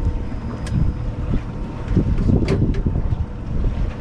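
Wind buffeting the microphone on a boat at sea, a loud low rumble under a faint steady hum, with two sharp clicks about a second apart and again near the middle.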